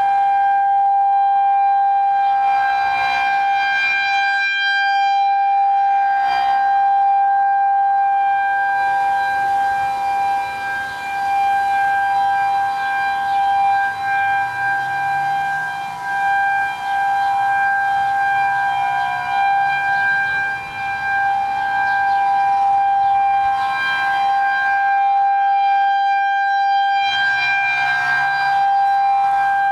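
Federal Signal 2001-130 outdoor warning siren sounding its steady Alert-mode tone, the level swelling and dipping as the rotating horn sweeps, with other sirens sounding steady tones behind it.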